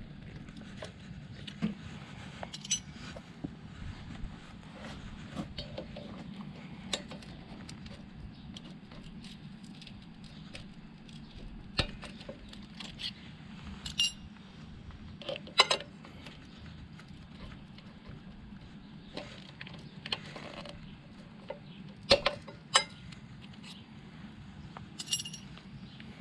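Scattered sharp metal clinks and taps, a few ringing briefly, as a flathead screwdriver pries the pushrod cover clips out of a Harley-Davidson Ironhead Sportster engine and the small steel parts knock together. A steady low hum runs underneath.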